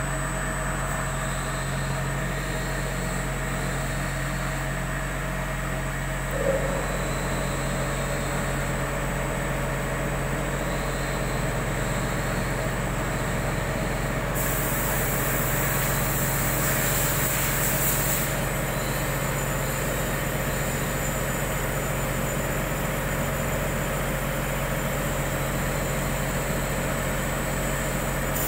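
CNC lathe turning a large steel pump-impeller blank: a steady machine hum with a constant high whine from the spindle and cut. A brighter hiss joins for about four seconds midway.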